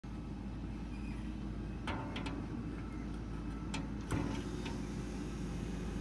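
A handful of short metal clicks and taps as the inserted teeth on a large circular sawmill blade are worked with a bit wrench, the loudest about four seconds in, over a steady low hum.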